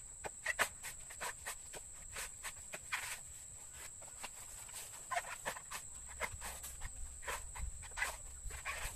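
Coconut husks being pried and torn off on a husking spike: irregular crunching and ripping of the dry fibrous husk, in quick uneven strokes.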